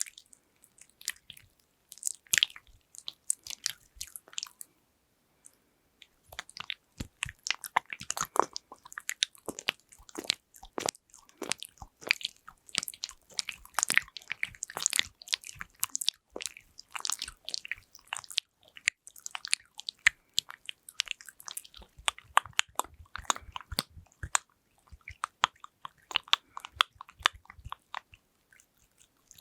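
Close-miked ASMR tapping and handling sounds: fingers and fingernails making rapid, irregular crisp clicks and taps, with a pause of about two seconds near five seconds in.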